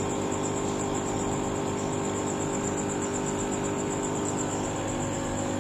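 Aquarium air pump and filter running: a steady electrical hum with a hiss of air bubbles and a thin high whine.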